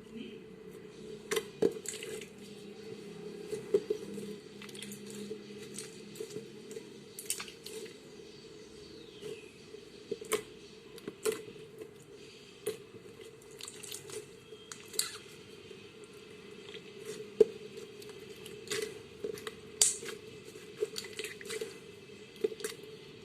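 Slime being squeezed and poked by hand, giving irregular sticky clicks and pops over a faint steady hum.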